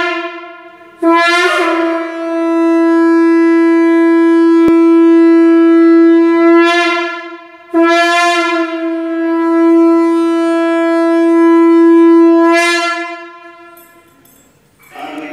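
Conch shell (shankha) blown in two long, steady blasts of about six seconds each, each brightening as it starts, after the fading tail of an earlier blast. It is sounded to open the arati worship.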